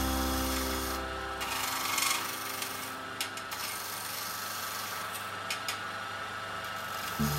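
Turning chisel cutting a spinning wooden blank on a wood lathe: a steady scraping of the tool on the wood, with a few sharp clicks. Background music fades out over the first couple of seconds and comes back near the end.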